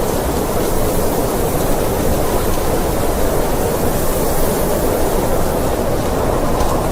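Blizzard wind: a steady, dense rushing noise, fullest in the low-middle range with a fainter hiss above, without gusts or breaks.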